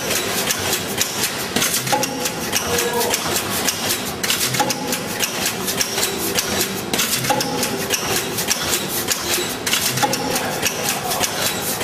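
Sani Cut automatic horizontal-blind machine running: fast, continuous mechanical clatter, with a short humming tone that comes back about every two and a half to three seconds as the machine repeats its work cycle.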